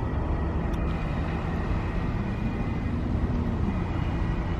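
Steady road and engine noise of a car driving, a low rumble with a faint click about a second in.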